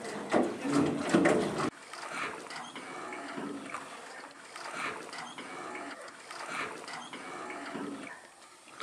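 Water splashing and lapping around a small wooden rowboat being rowed on a river. The sound drops suddenly to a quieter water bed with faint intermittent sounds about two seconds in.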